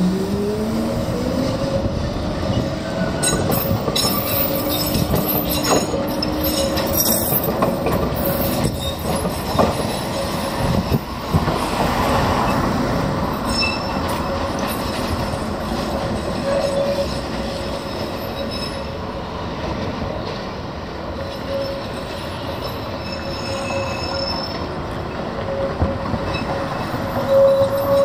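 V3A-93 tram pulling away with a rising motor whine, then taking the terminus loop's curves and points. Wheels click and knock over the points, and the wheels squeal in a steady tone on the curve, with higher squeals joining near the end.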